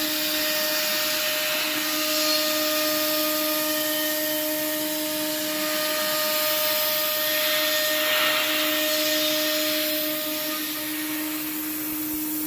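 Home-built CNC router's spindle running with a steady whine over the hiss of a compressed-air blast clearing chips from deep slots in hardwood form ply. The hiss swells for a second or two about two-thirds of the way through, and one of the spindle's tones drops out near the end.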